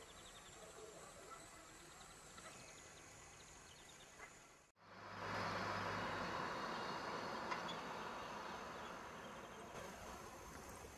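Outdoor background noise. A faint even hiss breaks off at a sudden cut just under halfway through, then a louder rushing noise starts and slowly fades.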